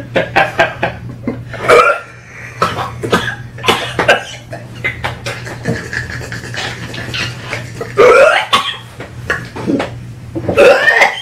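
A man gagging and coughing from the taste of a barf-flavoured jelly bean, while others laugh; the loudest bursts come about eight seconds in and near the end.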